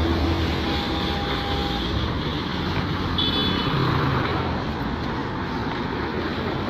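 Road traffic going by on a busy city road, with steady engine and tyre noise and a short high beep about three seconds in.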